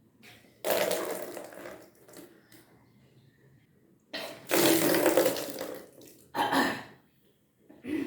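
A person retching and bringing up gushes of swallowed water during kunjal kriya, the yogic cleansing by induced vomiting. There are four bursts: a long one about a second in, a longer one around four seconds in, and two short ones near the end.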